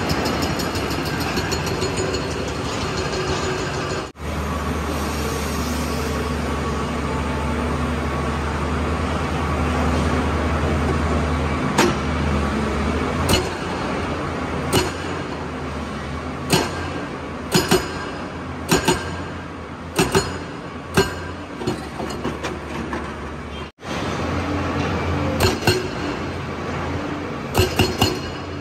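Excavator engine running steadily, with irregular sharp clinks and knocks from about halfway through. The sound cuts out briefly twice.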